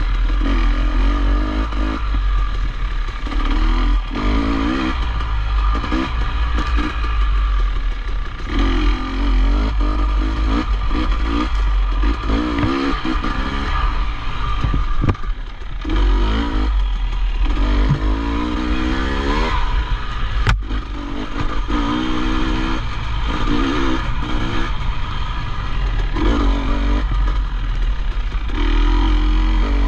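Dirt bike engine revving up and down in repeated bursts with short breaks off the throttle as the bike is ridden off-road, over a constant low rumble of wind on the microphone, with one sharp knock about twenty seconds in.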